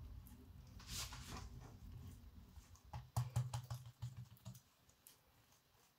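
Faint soft clicks and taps of hands rolling and pressing a buttered strip of msemen dough against a countertop. Most of them come in a cluster about three seconds in, and near silence follows.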